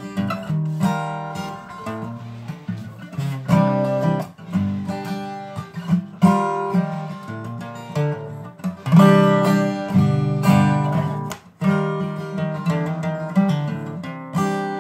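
Acoustic guitar played solo, strummed and picked chords in a dark, riff-based style. The playing breaks off for an instant about two-thirds of the way in, then carries on.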